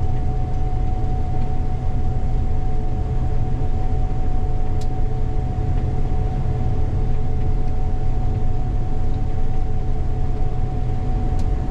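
Gleaner combine running steadily while harvesting soybeans: a deep, even rumble with a steady whine held over it.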